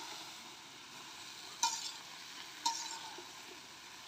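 Cut taro stems sizzling as they fry in oil and spice paste in a metal karahi, with a spatula stirring and striking the pan twice, about a second and a half and two and a half seconds in, each strike ringing briefly.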